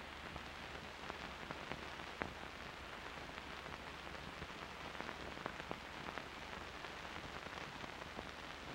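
Faint steady hiss with scattered clicks and pops: the surface noise of an old optical film soundtrack.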